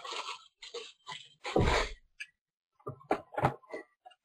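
Hands handling an emptied cardboard trading-card box and papers on a table. There is a dull knock about a second and a half in, then a quick run of taps and rustles near the end.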